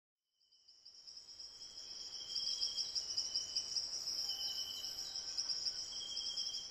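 Crickets and other insects chirring in a steady, high, finely pulsing chorus that fades in over the first two seconds.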